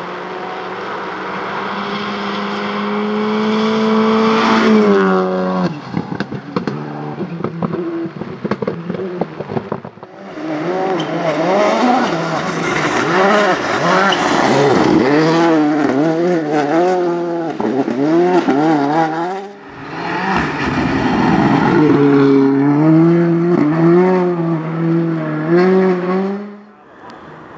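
Rally cars at full throttle on a gravel stage, one after another, with engines revving hard and pitch climbing and falling through gear changes. About five seconds in the first car lifts and its exhaust gives a run of pops and bangs.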